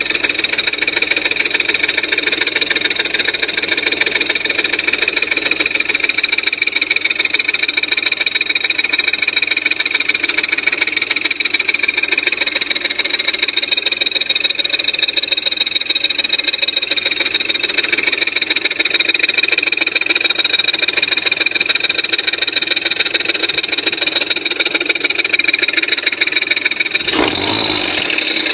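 Audi A4 3.0 V6 engine idling at a steady speed, with a steady high-pitched whine over the running engine: the noise that developed after a timing belt change and that is absent on a cold start. A short burst of broader, lower noise comes near the end.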